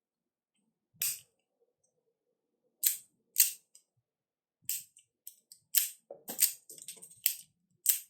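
Sharp clicks and snaps from the small alloy Kar98k toy rifle being handled: one about a second in, two more around three seconds, then a quicker irregular run of clicks in the second half.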